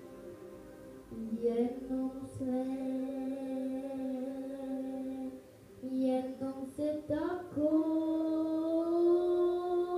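A boy singing, starting about a second in, with long held notes that waver slightly. There is a short break about five and a half seconds in, then a slide up into a higher held note.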